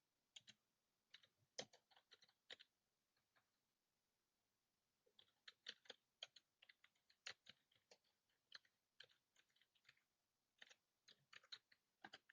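Faint computer keyboard typing: irregular runs of keystroke clicks, pausing for about two seconds near the start before picking up again.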